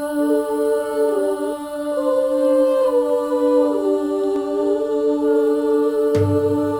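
Girls' choir singing a long held chord while one voice part moves between notes. A low note enters about six seconds in.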